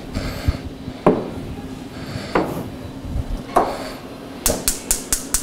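Wooden spatula stirring milk in a stainless steel saucepan: three short strokes about a second apart. Near the end comes a quick run of about six sharp clicks.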